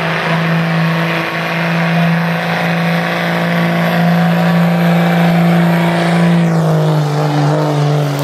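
1992 Dodge 2500's 5.9-litre turbocharged Cummins diesel running hard at steady high revs under load as the truck pulls the sled. About six and a half seconds in, the revs drop and the note falls in pitch.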